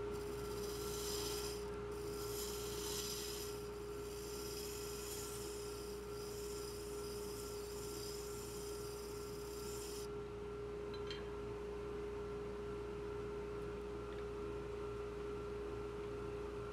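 Wood lathe running with a steady motor whine and low hum. For about the first ten seconds a high hiss from a tool or abrasive against the spinning ash workpiece, with a couple of short breaks, then it stops while the lathe keeps running.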